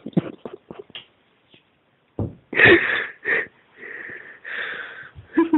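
Stifled laughter close to the microphone: breathy wheezes, sniffs and hissing snickers, breaking into a few short pitched giggles near the end.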